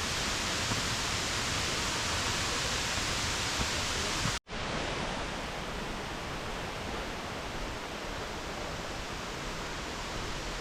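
Steady rush of falling water from a waterfall. About four and a half seconds in it cuts out for an instant, then carries on slightly quieter.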